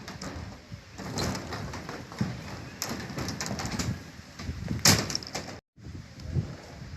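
Irregular knocks and clatter of hands-on building work, with a sharp bang about five seconds in. The sound cuts out completely for a moment just before six seconds.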